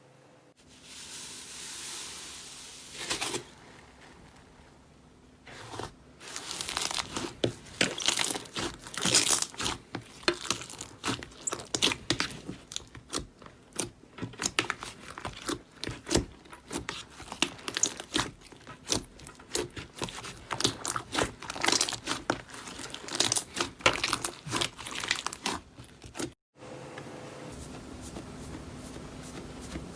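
Slime being worked by hand, making dense, irregular sticky clicks and crackles from about six seconds in. The sound drops out briefly near the end and is followed by a quieter steady hum.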